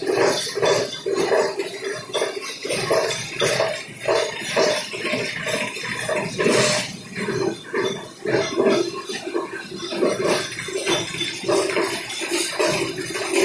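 A recycling machine working on old plastic sacks, running with a fast, uneven clatter and knocking, with water sloshing through it.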